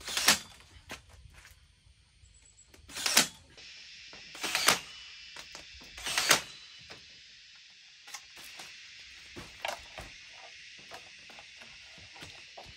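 Four sharp, loud strikes, the gaps between them between about one and three seconds, followed by a run of lighter knocks and taps, as of hand-tool work.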